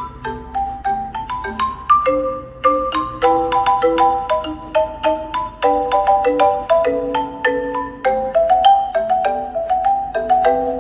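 Instrumental music of quick, struck pitched notes that each ring briefly, several a second, in a light, bell-like mallet sound.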